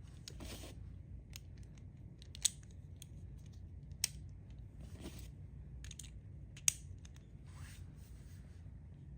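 Small plastic Beyblade parts being handled: three sharp clicks, one about two and a half seconds in, one about four seconds in and one near seven seconds, among short scraping and rustling noises.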